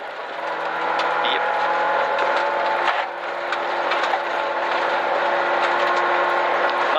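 Rally car's engine running hard at fairly steady high revs, heard from inside the cabin over heavy tyre and road noise, with small stone clicks. The engine note dips briefly about three seconds in.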